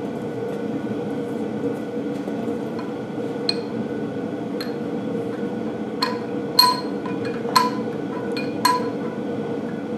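Steel parts of a bulldozer final drive clinking as the shaft is worked through its housing: a series of sharp metallic clinks, each ringing briefly, starting about three seconds in and coming more often in the second half, over a steady low hum.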